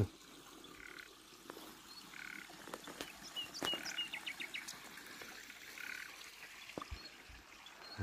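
Faint outdoor ambience with a short animal call repeated three or four times, one to three seconds apart, a few quick high chirps around the middle, and a few light clicks.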